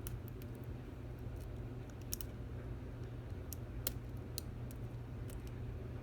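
Faint, irregular metallic clicks and ticks of a lock pick working the pin stack of a Stanley 24/7 lock held in a false set, the loudest click near four seconds in. A steady low hum runs underneath.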